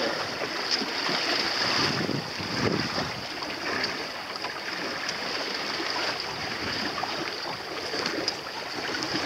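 Steady rush of water along a sailboat's hull under way through light chop, mixed with wind.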